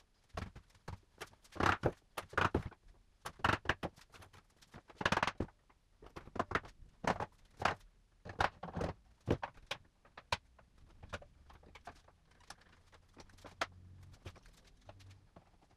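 Irregular clicks, knocks and clatter of bar clamps being handled and set onto a wooden cart assembly during a glue-up, a few louder knocks among many lighter ones.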